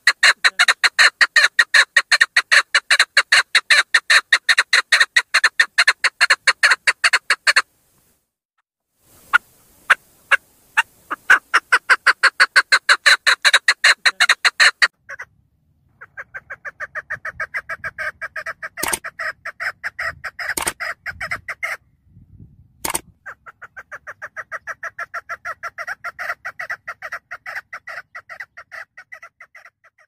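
Female chukar partridge calling in long runs of rapid, evenly repeated chattering notes. The runs stop briefly and start again, and they are softer in the second half, where a few sharp clicks cut in. This is the female call hunters play to draw in males.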